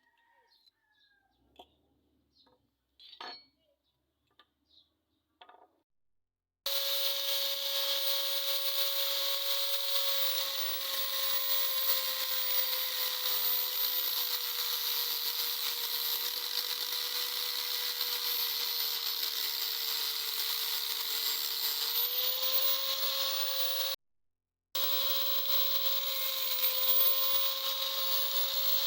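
An electric power tool starts up abruptly about a quarter of the way in and runs steadily with a high hum and a strong hiss. Its pitch sags slightly, then picks back up near the end. A few faint ticks and chirps come before it.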